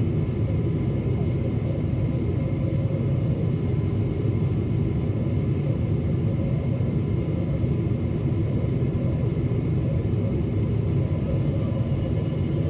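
Steady low rumble of jet airliner cabin noise, engines and airflow heard from inside the cabin during descent, with a faint steady high whine over it.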